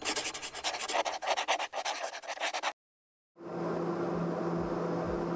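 A quick, irregular run of scratchy strokes like a pen writing, which stops dead about two and a half seconds in. After a short gap a turboprop airliner's cabin noise sets in: a steady engine drone with a low hum.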